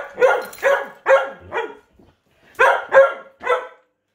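Rough collie barking: five quick barks, a pause of about a second, then three more.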